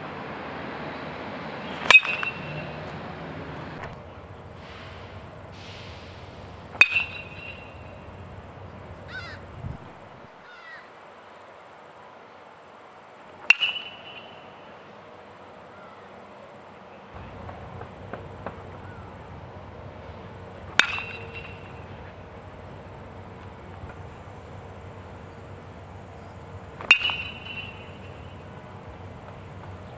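Baseball bat hitting pitched baseballs: five sharp cracks, each with a short ringing ping, spaced about five to seven seconds apart.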